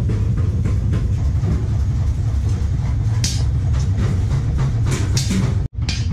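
Steady low mechanical rumble of workshop machinery, with irregular light metallic knocks and taps from hand tools working steel rod. The sound cuts out for an instant near the end.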